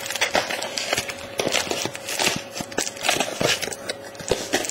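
Trading-card pack wrapper crinkling and rustling in irregular crackles as it is cut open with a hobby knife and handled.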